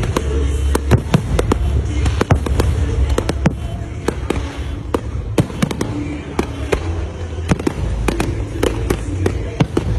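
Fireworks display with aerial shells bursting in quick, irregular bangs and crackles, several a second, over a steady low rumble.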